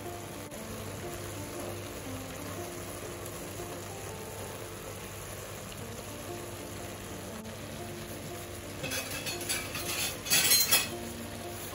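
Background music with a simple stepping melody. About nine seconds in, a short crackling hiss, loudest near the end, as salt is sprinkled over the vegetables in a steel pot.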